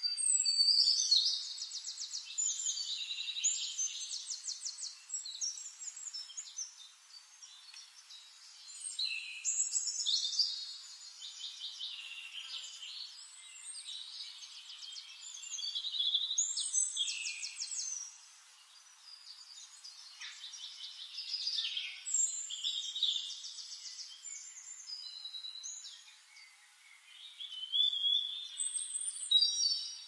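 Splendid fairywren song: about five bursts of rapid, high trilling reels, each lasting a few seconds, with quieter twitters in the short gaps between.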